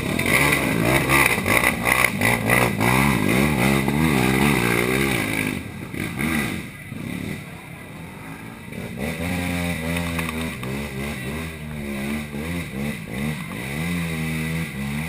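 A racing quad (ATV) engine revving hard in a mud pit, its pitch rising and falling repeatedly as the rider works the throttle. It drops away about six seconds in, and engine revs rise and fall again from about nine seconds on.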